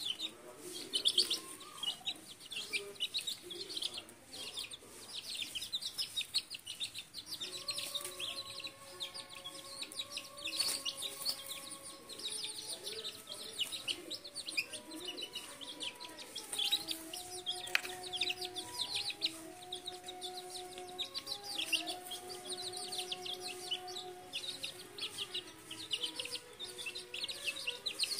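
Chicks peeping rapidly and without pause, high-pitched, with a hen clucking now and then.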